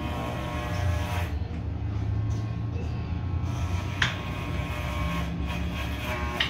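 Scissors cutting a lock of long hair, two short snips about four seconds in and near the end, over a steady low electric hum.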